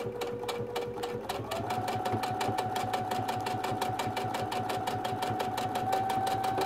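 Baby Lock Soprano sewing machine top-stitching a fabric strap at a steady fast pace, a quick even run of needle strokes over a motor whine that rises in pitch about a second and a half in as the machine speeds up.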